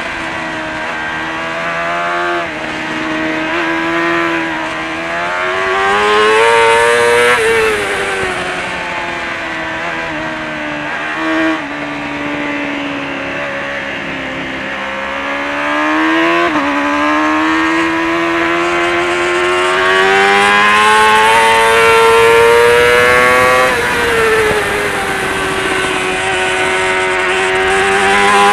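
Kawasaki ZXR400 race bike's inline-four engine at racing revs, heard onboard. The pitch climbs steadily and then drops sharply about five times as the bike changes gear and rolls off for corners.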